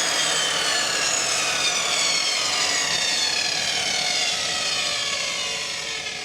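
Ryobi RTS21 table saw with a dado blade stack spinning down with the power off: a loud whine that falls steadily in pitch and slowly fades as the blade coasts to a stop.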